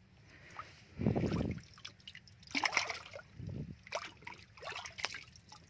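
Water splashing and sloshing in a shallow fish tank as grass carp move at the surface, with two dull low thumps, one about a second in and one about three and a half seconds in.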